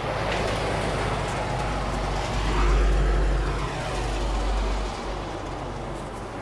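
Road traffic: a passing vehicle's noise swells to a peak about three seconds in and then fades.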